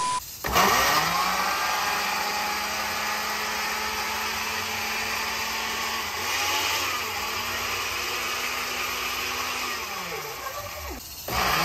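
Countertop blender motor spinning up and running while puréeing tomatoes, garlic, herbs and olive oil. Its pitch dips and recovers about six seconds in, then it winds down and stops near the end, starting up again just before the end.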